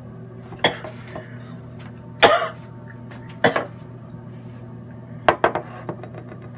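A man coughing three times in short, rough bursts, the second the loudest. A few quick clicks of handling follow about five seconds in, over a steady low hum.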